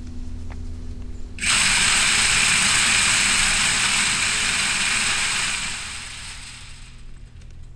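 Automatic game feeder going off: its spinner motor hums while the spinning plate flings feed out in a dense rattling spray. The spray comes in sharply about a second and a half in and fades away over the last two seconds.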